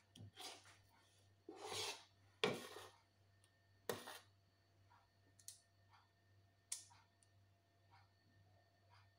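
A metal spoon scraping and clicking as chocolate cupcake batter is scooped and dropped into paper liners in a muffin tin: a few louder scrapes in the first four seconds, then fainter taps.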